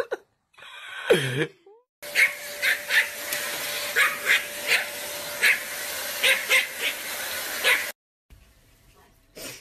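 Small dog, a Pomeranian, yapping: about ten short, sharp barks over six seconds over a steady background hum. A brief falling voice comes near the start.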